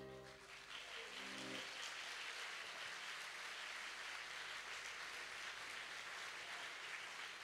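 Audience applauding at the end of a song, the applause starting as an accordion's final chord dies away in the first second or so.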